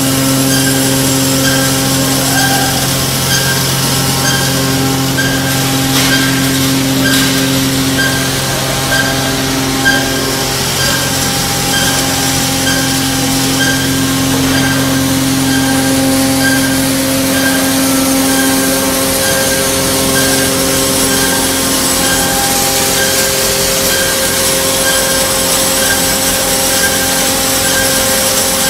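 Machinery of a biomass wood briquette production line running steadily: a loud, continuous mechanical hum with several steady tones. The deepest part of the hum drops away about two-thirds of the way through.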